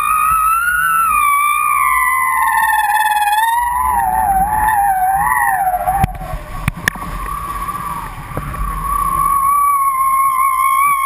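A wavering, whistle-like tone of wind over the kiteboarding control bar and its lines, over the low rush of wind and water. The pitch slides down as the rider turns about halfway through, with a few sharp knocks, then holds steady again.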